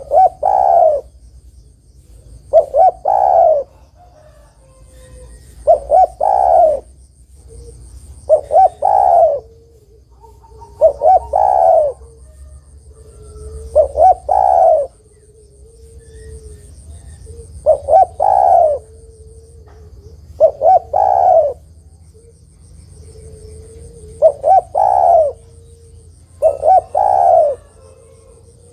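Female spotted dove cooing to call a male. About ten phrases, roughly one every two and a half to three seconds, each of two or three short notes followed by a longer coo.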